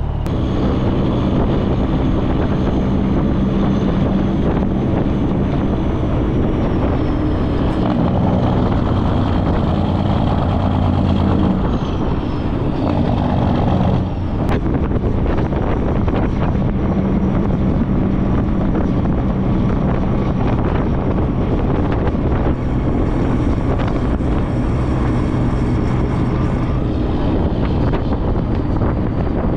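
Heavy-duty tow truck's engine running steadily under way while towing a tractor, with a shift in the engine note about twelve to fourteen seconds in.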